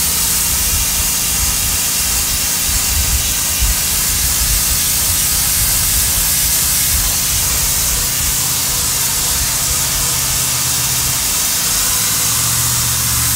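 Sun Joe SPX3000 electric pressure washer running steadily, a low motor-and-pump hum under the loud hiss of the 15-degree nozzle's water jet striking a painted concrete step and stripping the paint off.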